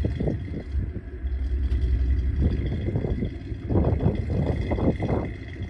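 Rock-crawler buggy's engine revving in repeated short throttle bursts over a deep rumble as it pulls up a steep rock ledge, the bursts coming thickest near the end.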